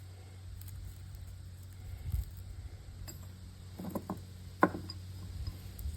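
Light metal clinks and taps from a crucible setup being handled for melting scrap copper: a few quick ticks about four seconds in, then one sharp clink. Under them runs a steady low hum, with a dull knock about two seconds in.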